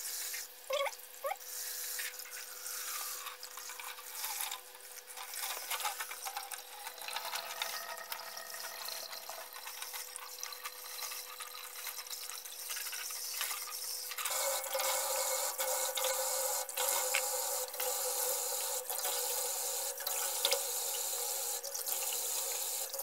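Kitchen tap running through a shower-head spray nozzle, splashing into a bowl of water in a steel sink as salted napa cabbage leaves are rinsed and squeezed under it. About two-thirds of the way through, the spray gets louder and steadier as it falls straight onto the bare steel sink.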